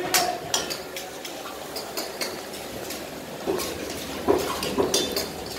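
Metal clanks and clinks of iron karahi woks, lids and utensils being handled, irregular knocks several times a second over a steady hiss, the loudest about four seconds in.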